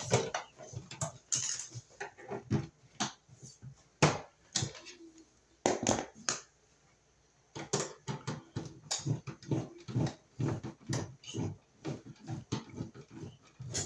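Irregular clicks, taps and rustles of pliers and stiff copper wires being worked into the metal wiring compartment of an electric baseboard heater, with a short lull a little past halfway.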